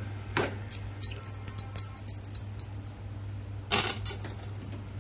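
A spatula stirring onions, cashews and almonds in water in a pan, with light clicks and clinks against the pan and two louder scrapes, one just after the start and one near the end.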